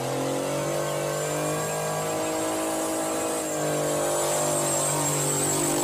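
Diesel school bus engine held at high, steady revs during a burnout.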